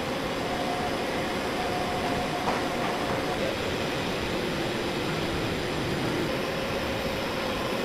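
Steady machine-shop background noise: an even hum and hiss with a few faint held tones, without distinct knocks or clicks.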